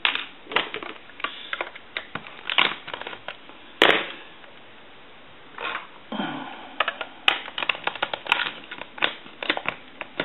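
Plastic housing of an AT&T 210 Trimline telephone being handled and taken apart: irregular clicks and knocks of plastic parts, with one louder knock about four seconds in.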